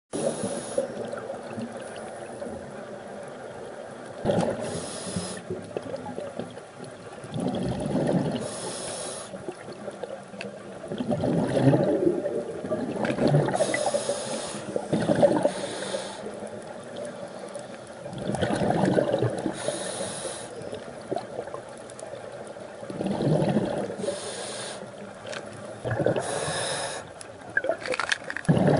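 Scuba diver breathing through a regulator underwater: a short hiss on each inhale, then a longer rush of exhaled bubbles, repeating about every five seconds.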